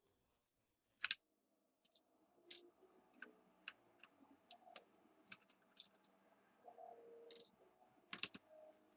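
Faint, scattered clicks and taps of a plastic netbook case and small parts being handled during disassembly, with a sharper click about a second in and a couple more near the end.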